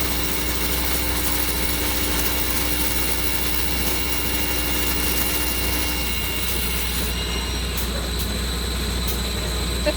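Foundation repair equipment running with a steady mechanical drone and a strong low hum, as the crew drills through a concrete slab. About six to seven seconds in, part of the steady tone and the high hiss drop away.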